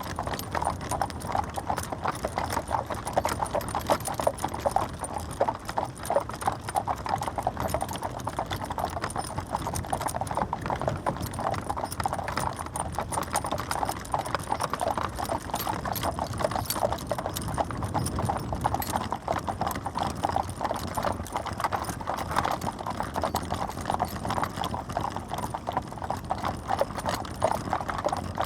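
Horse-drawn carriage on the move: hooves clip-clopping steadily in a continuous run of knocks, with a low rumble underneath.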